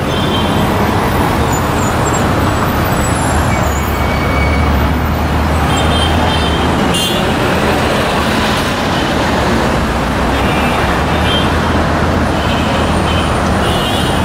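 Road traffic passing close by: cars and minibuses driving through a roundabout, engines and tyres making a steady loud noise, with a heavier engine drone about four to seven seconds in.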